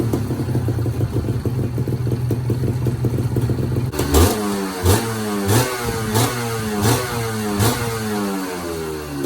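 Honda NS250R's two-stroke V-twin engine idling steadily, then revved in six quick throttle blips, about one every 0.7 seconds, before settling back toward idle near the end.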